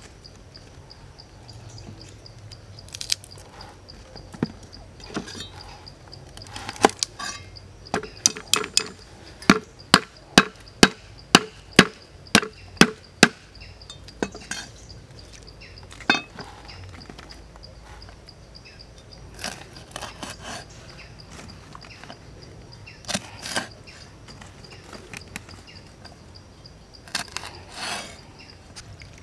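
Knife chopping garlic cloves on a thick wooden chopping block: scattered sharp knocks, then a quick regular run of about two to three knocks a second for several seconds, then a few more knocks near the end.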